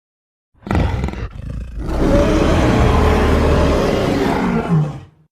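Custom kaiju monster roar sound effect: a short loud burst, a brief break, then one long roar of about three seconds that stops abruptly near the end.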